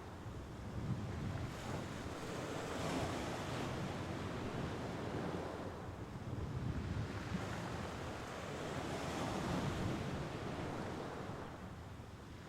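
Mediterranean Sea waves washing onto the shore: a steady wash of surf that swells twice and eases between.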